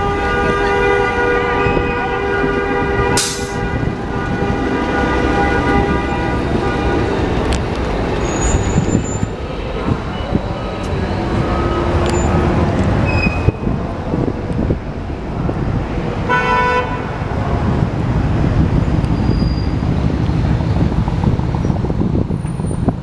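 City street traffic with New York City transit buses and cars passing, engines running low. A dual-tone car horn is held for about seven seconds at the start, and a second short honk comes about two-thirds of the way through.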